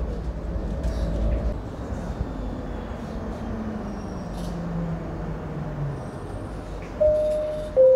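Bombardier Innovia C801A light-rail car running and slowing into a station, its motor whine falling in pitch as it slows. Near the end comes a two-note electronic chime, the higher note first and then a lower one.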